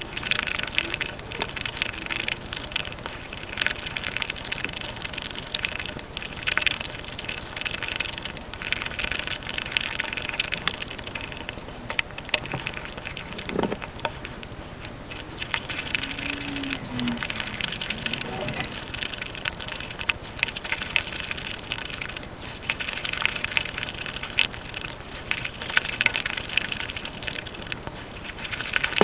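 Wet chewing and smacking mouth sounds of someone eating Indian sweets, sped up to five times normal speed so they run together into a fast, continuous stream of sticky clicks and crunches. A few brief squeaky pitched sounds come through near the middle.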